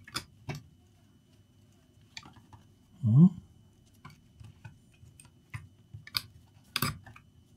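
Light clicks and knocks from a laptop's plastic top case and lid being handled and pressed into place. About three seconds in comes one louder short sound that rises in pitch, and near the end two sharper clicks.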